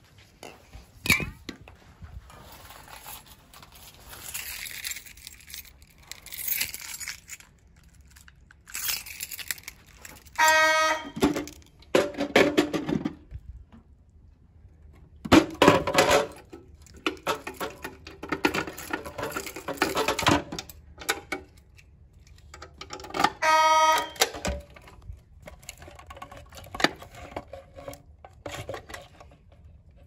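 Simplex 4903-9104 fire alarm horns sounding in two short, steady-pitched blasts of about a second each, around ten seconds in and again near twenty-three seconds. In between come irregular clattering and rattling handling noises from a clear plastic pull-station cover being worked open.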